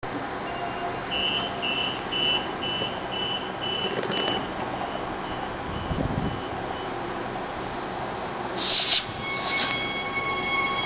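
Transperth B-series electric multiple unit at a station: a rapid run of high door-closing warning beeps, about two and a half a second, then the doors knock shut. Near the end come two loud bursts of air hiss, and the electric traction motors set up a steady high whine as the train starts to depart.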